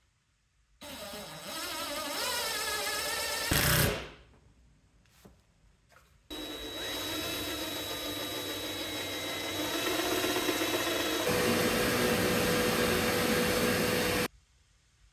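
A handheld power tool motor runs twice. The first short run, about a second in, wavers in pitch and ends with a loud knock; the second, longer run starts about six seconds in, holds steady, shifts in tone near eleven seconds, and cuts off suddenly.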